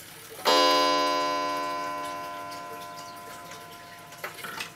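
Regulator A 31-day mahogany-case wall clock striking once, a single ringing note that fades slowly; its minute hand stands at the half hour, so this is the half-hour strike. A few small clicks follow near the end as the hand is turned on.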